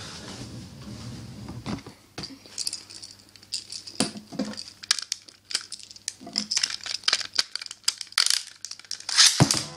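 Plastic Beyblade spinning tops whirring and grinding on the stadium floor for the first two seconds as the battle winds down. Then comes a long run of small plastic clicks and rattles as the tops are handled and readied. It ends in a loud rasping burst near the end as a launcher's ripcord is pulled.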